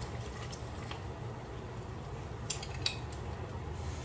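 Metal hand-held lime squeezer clicking and clinking as limes are pressed in it, with two sharp metal clicks about two and a half and three seconds in, over a steady low background hum.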